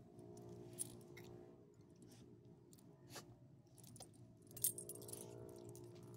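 Metal ID tag and leash clip on a small dog's collar jingling in a string of short, light bursts as she moves, loudest about two-thirds through, over a faint steady low hum.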